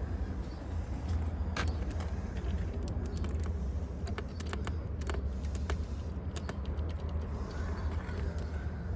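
Scattered light metallic clicks and clinks of hand tools being handled, a few at a time, over a steady low rumble.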